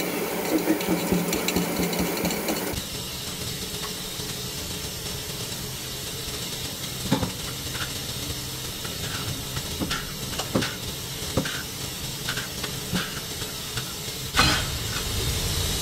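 Steel hoist chains and metal parts clinking and rattling at a lathe spindle, stopping abruptly about three seconds in. Scattered light metallic clicks and taps follow, then a sudden sharp knock near the end.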